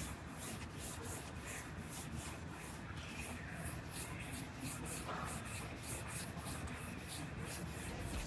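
Sanding pad rubbed back and forth by hand over a car's metal roof panel, a steady scratchy scrubbing at about three strokes a second, as the repaired roof is sanded before paint.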